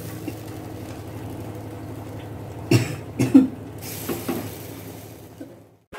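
A person coughs in several short, sudden fits about a second apart, over a steady low hum.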